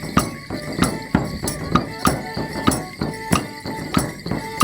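Border Morris dance music: folk band playing, with held reed-like notes and sharp clacks roughly twice a second keeping the beat.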